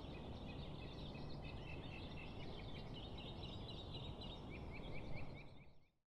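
Small birds chirping and calling over a steady low outdoor background hum, with a quick run of short repeated chirps about five seconds in before everything fades out.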